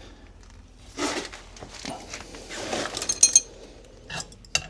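Metal tools and plumbing fittings being handled: rustling and scraping, a quick run of metallic clinks just after three seconds in, and a sharp click near the end.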